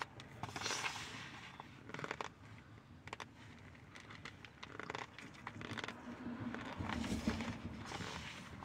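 Dry cornstarch crunching and crackling as handfuls are squeezed in the hands and bitten off in clumps, in irregular bursts.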